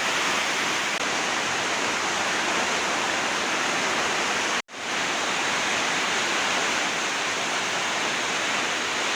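Steady rushing noise of a storm: heavy rain, wind and running water blend into one even roar. It cuts out for an instant about halfway through, then comes back unchanged.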